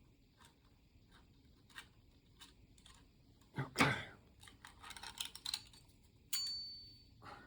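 Small metal clicks and taps from hand tools working on a motorcycle fork, with a knock a little past halfway and a quick run of clicks after it. Near the end comes a sharp metallic clink that rings briefly on a high pitch.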